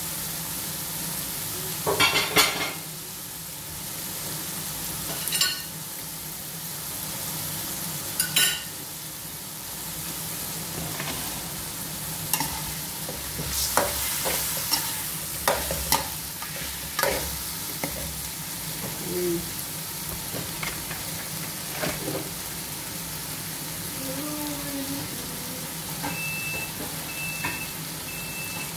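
Chicken pieces with tomato and onion frying with a steady sizzle in an aluminium kawali, while a metal spoon scrapes and knocks against the pan as it is stirred. Three short high beeps near the end.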